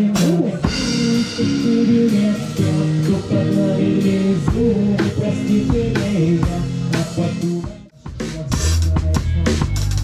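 Drum kit played live with sticks, snare, bass drum and cymbals, over music from other pitched instruments. Just before eight seconds in, everything stops for a moment, then the drums come back in with heavier bass drum hits.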